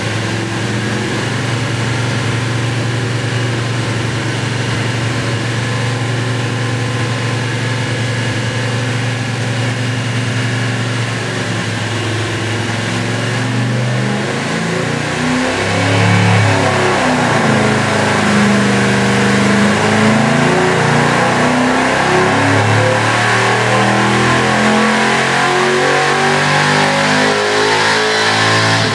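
357-cubic-inch Gen II LT1 small-block Chevy V8 with a Holley 750 carburetor running on an engine dyno. It holds a steady note at first, then about halfway through it gets louder and its pitch shifts as it is loaded and swept up through a dyno pull from 3500 to 6500 rpm, with the timing at 32 degrees.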